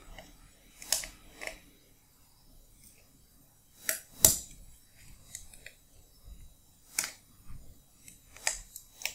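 Short, sharp plastic clicks and snips at irregular intervals as the leftover burr is trimmed off a cut-down plastic drone propeller, with one louder knock about four seconds in.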